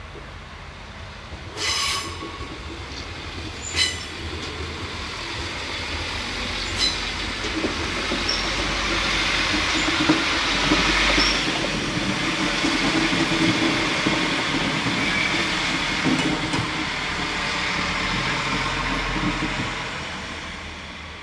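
A two-car regional multiple-unit train passing close by. Its rolling noise rises to a peak about halfway through and fades near the end, with wheels clicking over rail joints and brief high wheel squeals. There are two short high-pitched toots near the start.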